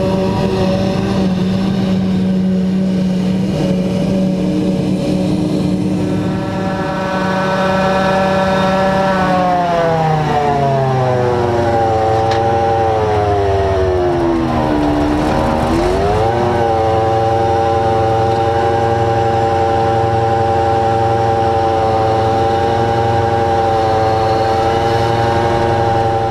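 John Deere self-propelled forage harvester running with a loud, steady machine whine. About a third of the way in the pitch slides down for several seconds, then climbs back sharply and holds steady.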